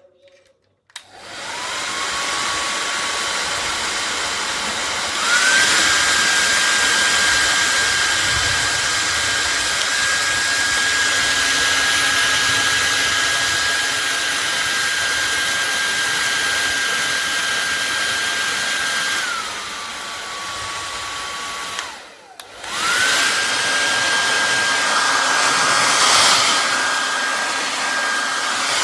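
Remington Pro-Air Shine D5215 hair dryer switched on and running, a steady rush of air with a motor whine. It steps up to a higher speed about five seconds in and back down near twenty seconds, is switched off briefly a little later, then comes back on at the higher speed.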